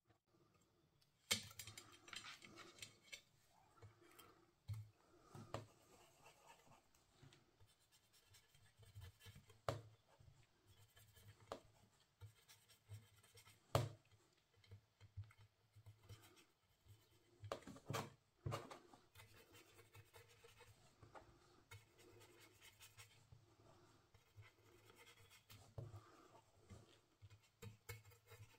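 Faint, scratchy brushing of a small ink brush working distress ink onto die-cut cardstock, with a few sharp clicks and taps scattered through.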